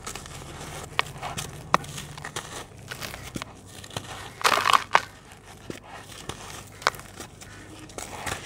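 Dry lumps of red dirt crushed and crumbled between bare hands into a basin of muddy water: gritty crunching and crackling, with a few sharp snaps as chunks break and a louder burst of crunching about halfway through.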